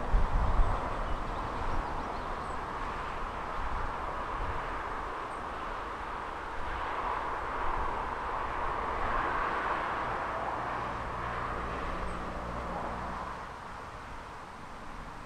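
A road vehicle passing at a distance: a steady rushing noise that swells through the middle and fades near the end, with a low engine hum under it. There are low rumbling buffets in the first second.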